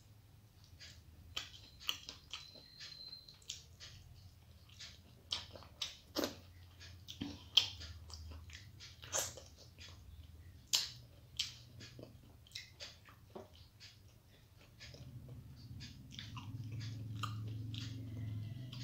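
Close-up mouth sounds of eating by hand: soft chewing of rice and fish curry, with irregular wet smacks and clicks of the lips and fingers. A low steady hum comes up near the end.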